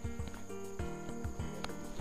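Background music: held notes over a low, regular beat.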